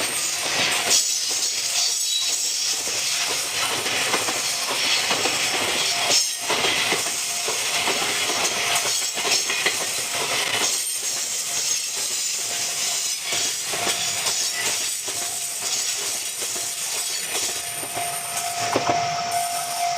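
A train passing over a level crossing, its wheels clattering continuously over the rails. A steady tone comes in near the end.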